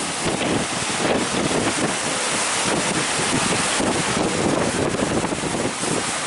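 Wind buffeting the microphone steadily over the rush of sea waves around a boat.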